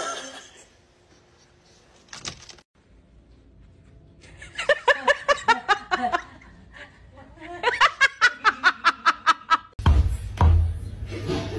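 A person laughing in two runs of quick, evenly spaced bursts of "ha-ha-ha", about halfway through and again later. Near the end a different, denser sound with a low hum takes over.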